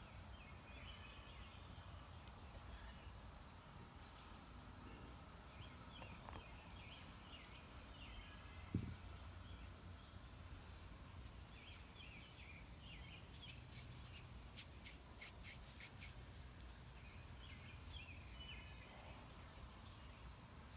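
Quiet handling of air-dry clay by hand: one soft knock a little before halfway and a quick run of small clicks about two-thirds through, over a low hum and faint chirps.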